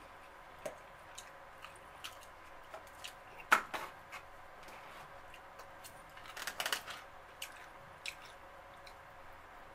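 Plastic fork scraping and tapping in a styrofoam takeout clamshell and a small plastic sauce cup, with chewing. The sounds come as scattered clicks, the loudest about three and a half seconds in and a quick cluster near seven seconds.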